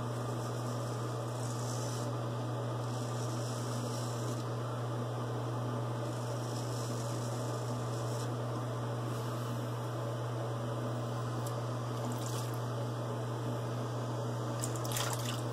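A steady low electrical hum, with faint scratchy strokes of a straight razor shaving stubble in short spells over it.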